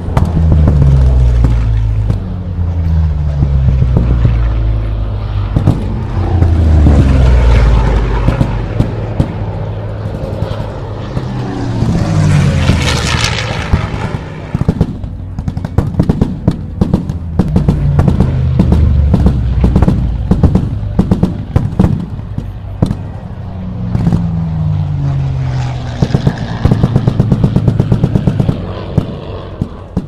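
Battle-reenactment ambience: continuous rapid small-arms and machine-gun fire, with warplane engines passing overhead again and again, each dropping in pitch as it goes by. The loudest pass comes about twelve to thirteen seconds in.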